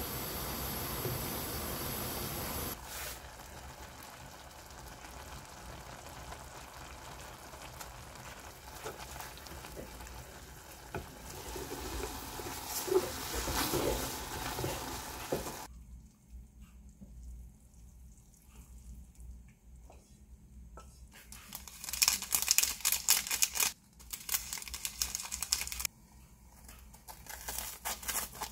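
A pot of instant noodles boiling with a steady hiss, then the noodles stirred with chopsticks through the sauce midway. In the last seven seconds, kitchen scissors crunch through the crisp crust of a breaded fried cutlet in loud crackly snips.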